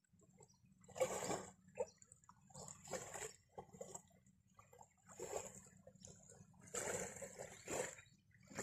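Small waves lapping and washing onto a sandy, stony shore in faint, irregular surges every second or so.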